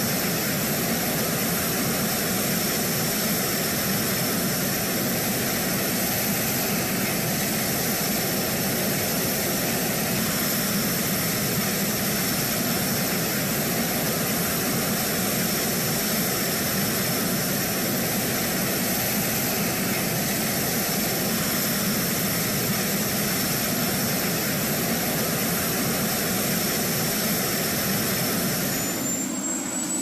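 Jet engine running steadily: a constant loud rush with high-pitched whine tones. Shortly before the end it changes abruptly to a quieter noise with a whine rising in pitch.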